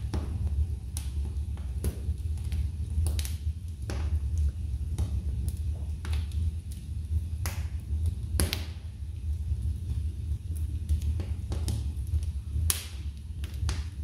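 Wood logs burning in a fireplace, crackling with irregular sharp pops and snaps, a few of them louder, over a low steady rumble of the fire.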